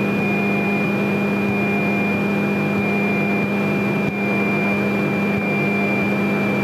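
Grumman single-engine light aircraft's piston engine running steadily at low taxi power, heard as an even drone with a thin steady high tone over it, as picked up in the cockpit through the headset intercom.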